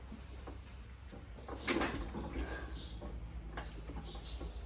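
A 1923 Fairbanks Morse 1½ hp hit-and-miss engine being turned over by hand at its flywheels, with mechanical clicks and squeaks and one sharp clack about a second and a half in. It does not fire because it isn't drawing fuel from the tank.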